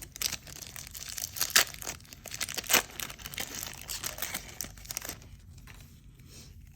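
A paper-and-plastic trading-card pack wrapper being torn open and crinkled, with sharp crackles, a few of them loud. The crackling dies down after about five seconds to softer rustling as the cards are handled.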